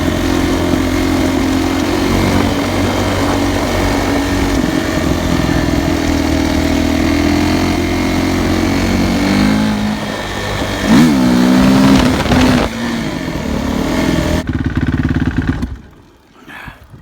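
Suzuki RM-Z450 dirt bike's single-cylinder four-stroke engine running steadily. It is revved up and down a couple of times about ten seconds in, then stops abruptly near the end. It is the engine's first run after a new ignition coil, and the owner finds it runs pretty good.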